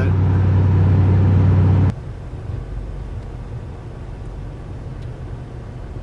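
Car cabin noise while driving on a highway: a steady low engine-and-tyre drone. About two seconds in it cuts off abruptly to a much quieter low rumble inside the car.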